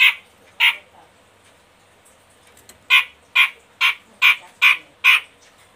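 Cucak jenggot (bulbul) giving short, harsh rasping calls: two near the start, then a run of six at about two a second.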